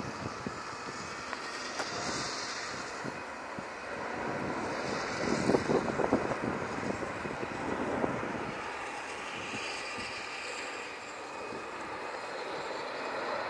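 Airbus A350-1000's twin Rolls-Royce Trent XWB-97 turbofans heard from the ground as the airliner flies past: a steady jet rumble that swells about halfway through and then eases off.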